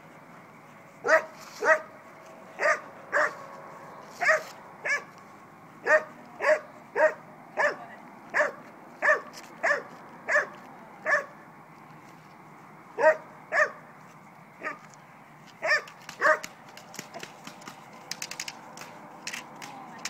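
Dog barking at a protection-training decoy: about twenty sharp barks, mostly in quick pairs, with a short pause in the middle. Near the end the barks stop and faint rapid clicking is heard.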